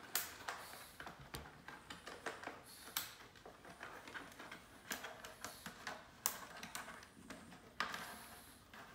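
Irregular light clicks and taps as a plastic air purifier is handled and its filter-cover screws are turned by hand, with a short rustle near the end.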